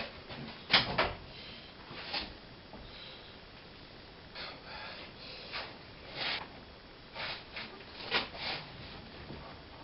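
Irregular scrapes, knocks and rustles of hand work fitting a car's rear window glass into its rubber seal, with the sharpest knocks about a second in and again around six and eight seconds in.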